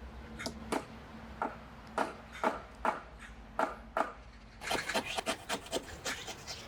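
A hand tool working the wood of a cutting board in short rubbing strokes, about two a second, then quicker strokes near the end.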